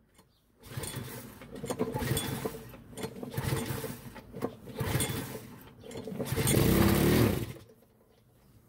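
Walk-behind lawn mower's small engine pull-started on a shot of starting fluid, catching and running unevenly for several seconds, loudest near the end before cutting out. It runs fast, which the owner puts down to a carburetor stuck on high.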